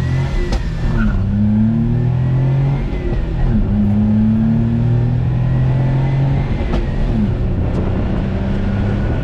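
1995 Suzuki Carry kei truck's small three-cylinder engine accelerating through the gears, heard from the cab. The engine note climbs, drops at each of three upshifts and climbs again. A faint high whistle rises and falls with it, the little whistling noise typical of this engine.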